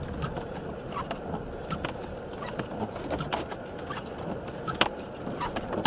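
Car driving through a blizzard, heard from inside the cabin: steady road and engine noise with scattered sharp ticks and taps at irregular intervals.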